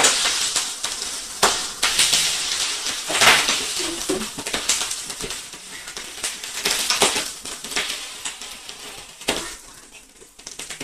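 Food sizzling in a frying pan, with utensils clicking and knocking against the pan and dishes; the sizzle dies down toward the end.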